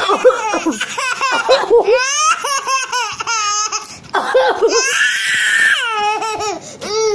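A baby laughing in repeated short, coughing bursts of laughter, with a longer high-pitched squeal about five seconds in.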